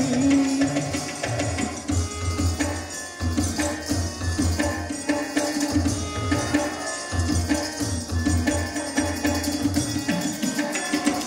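Instrumental passage of Bengali folk dance music: a hand drum beats a steady rhythm under a held keyboard melody.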